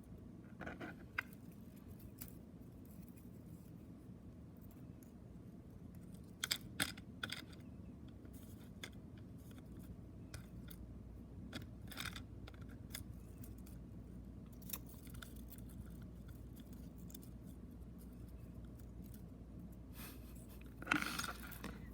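Scattered light clicks and taps of hands working a Sony UX Pro 60 cassette's plastic shell and tape while reeling the loose tape back in, over a faint steady hum.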